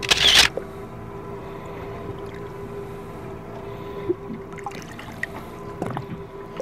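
Boat's outboard motor running steadily at low throttle, as used for slow trolling. A brief loud rushing burst comes right at the start, and a few faint knocks follow later.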